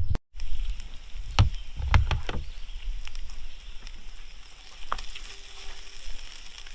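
Bacon and diced potatoes frying in a skillet with a steady sizzle, with a few knocks of a utensil against the pan, most of them in the first few seconds.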